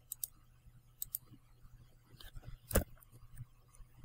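Computer mouse and keyboard clicks: a few faint clicks near the start and about a second in, and a louder one just under three seconds in, over a low steady hum.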